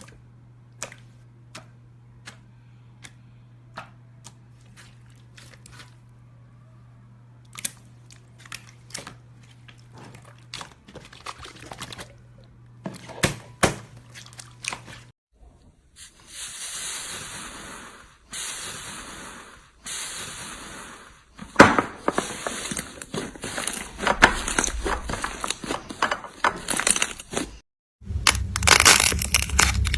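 Slime being handled: sparse sharp clicks and pops for the first half, then, after a cut, wet squishing pushes that turn into dense crackling. A louder crackly stretch follows another cut near the end.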